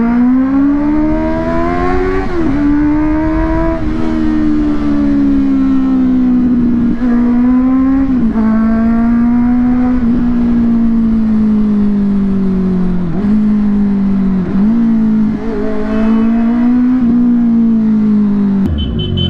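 Honda CBR650R's inline-four engine and exhaust under way, rising in pitch at first and then holding fairly level, with repeated brief dips in pitch at gear changes. The engine sound breaks off shortly before the end.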